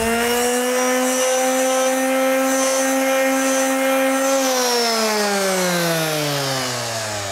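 A handheld electric power tool's motor running at a steady whine, then switched off about four seconds in and winding down, its pitch falling smoothly as it coasts to a stop.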